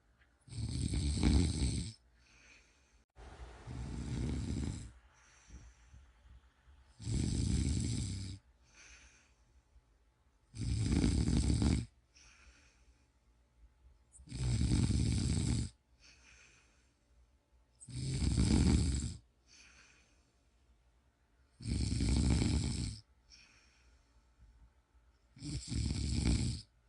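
A person snoring steadily and rhythmically: eight snores, one about every three and a half to four seconds, each lasting about a second and a half, with quieter breathing between them.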